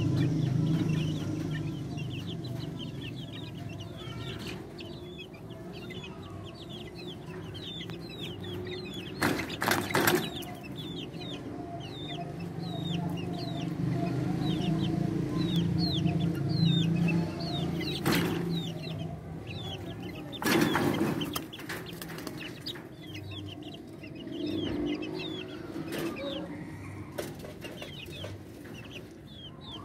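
Three-week-old chicks peeping over and over, a stream of short, high, falling chirps. A few loud knocks or rubbing noises break in around ten, eighteen and twenty-one seconds, over a steady low hum.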